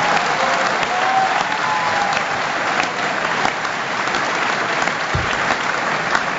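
A large audience applauding steadily, with a few faint voices in the crowd near the start.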